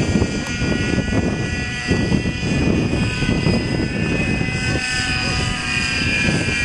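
Radio-controlled Hughes 500 scale model helicopter in flight: a steady high whine from its drive and rotors, drifting slightly in pitch. Gusty wind rumbles on the microphone underneath.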